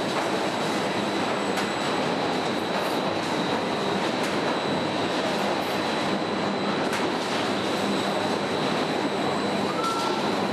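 Steady industrial din of a car body welding shop, with a constant thin high whine and a few faint sharp clicks scattered through.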